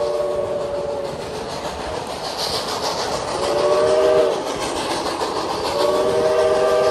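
Steam whistle of Reading & Northern 425, a Baldwin 4-6-2 Pacific, sounding a chord of several tones: the end of one blast in the first second, a short blast about halfway, and a long blast starting near the end. Under it, the steady rolling of the passenger cars on the rails.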